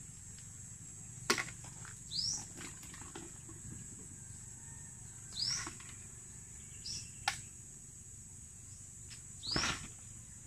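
Outdoor insect drone, steady and high, with a bird giving a short falling call three times, every three to four seconds. A couple of sharp clicks sound in between.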